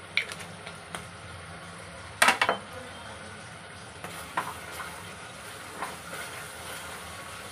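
A spatula stirring sauce in a nonstick wok, with a few sharp knocks against the pan. The loudest cluster comes about two seconds in. A low, steady sizzle runs underneath.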